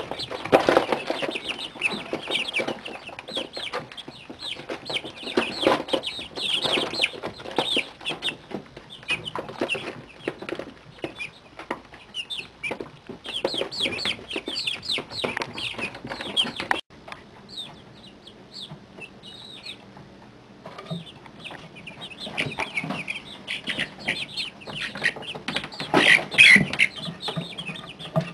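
A brooder full of month-old mixed-breed chicks peeping, many short high chirps overlapping. The chirping thins out for a few seconds just past the middle, then picks up again near the end.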